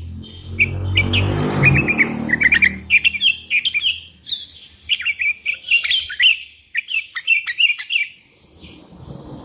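Sooty-headed bulbul (kutilang) singing a busy stream of short, quick chirps, calling to draw rivals. A low hum sounds under the first couple of seconds, and again faintly near the end.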